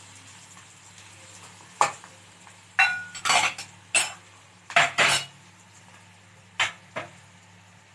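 Kitchen utensils clinking: a spoon knocking against pots and dishes in a series of sharp, uneven clinks, one of them ringing briefly.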